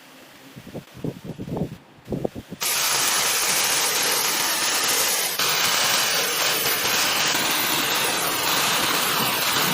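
A few short, quiet knocks, then about two and a half seconds in a workshop tool starts suddenly with a loud, steady hiss that runs on.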